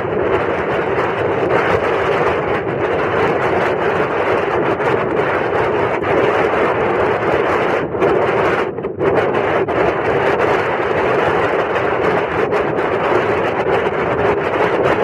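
Steady loud rush of wind on the microphone and water along the hull of a Red Fox 200S sailing dinghy under sail, dipping briefly about nine seconds in.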